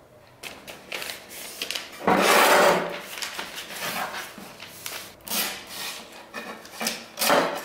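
A sheet of baking paper rustling and being cut with a knife on a wooden tabletop: a run of scraping, rasping strokes, the longest and loudest about two seconds in.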